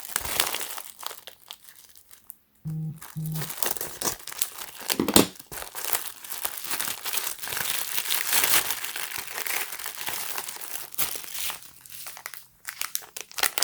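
Packaging being crinkled and torn open by hand while a small audio adapter is unboxed: irregular crackling and rustling with many small clicks, a sharp snap about five seconds in, and brief pauses around two seconds and near the end.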